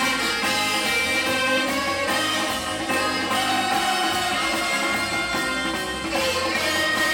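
Live festival band music played through a sound system: a melody line over a dense, steady accompaniment.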